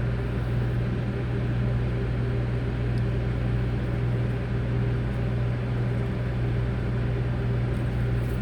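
Steady machine hum: a low, even drone with a fan-like hiss, unchanging throughout.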